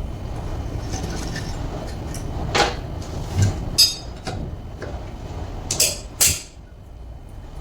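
Metal tools or parts knocking and clinking against each other five or so times, sharp and short, over a steady low rumble.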